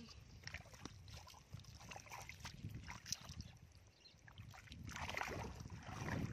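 Feet wading in shallow, muddy water: soft, irregular sloshing and small splashes, louder about five seconds in.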